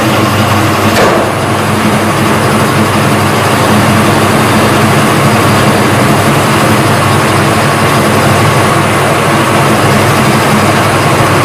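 Small metal-turning lathe running steadily, with its cutting tool set against the turning workpiece. A brief knock sounds about a second in.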